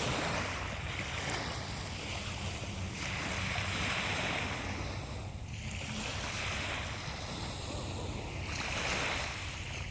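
Sea waves breaking and washing in, the hiss of the surf swelling and fading about every two to three seconds over a steady low rumble.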